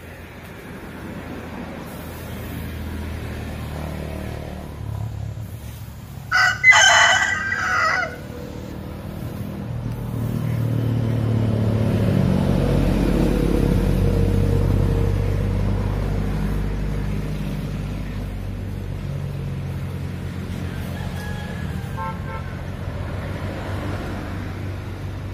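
A rooster crows once, loud and brief, about six seconds in. Then a passing motor vehicle's engine drones, swelling and slowly fading away.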